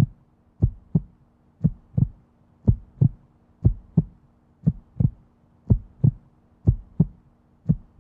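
Heartbeat sound effect: paired low thumps, lub-dub, about once a second, over a faint steady hum.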